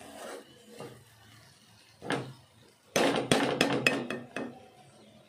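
A spatula scraping and clattering against a pan as cluster beans fry are stirred. There is one short scrape about two seconds in, then a quick run of sharp clacks lasting about a second and a half.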